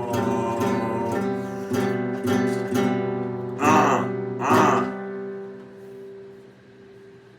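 Acoustic guitar strummed in a steady rhythm, with two louder strokes past the halfway point, after which the last chord rings and fades away.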